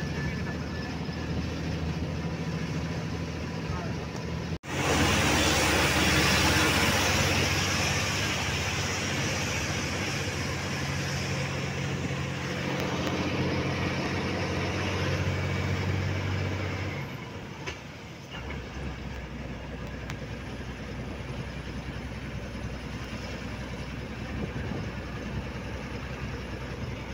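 Truck engine running steadily at speed, heard from inside the cab with road and wind rush, cut off briefly by a dropout about five seconds in. Around two-thirds of the way through the engine hum fades and the sound drops to a quieter road noise.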